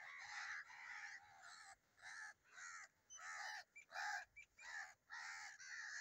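A flock of crows cawing: harsh calls one after another, roughly two a second, some overlapping, with short gaps between runs.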